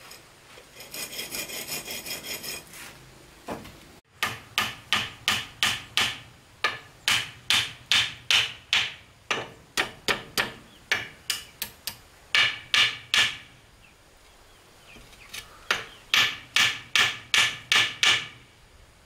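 Hand-tool work on wood. A short rasping stretch about a second in, then runs of quick sharp strokes, roughly two to three a second, with a pause of a couple of seconds before a last run.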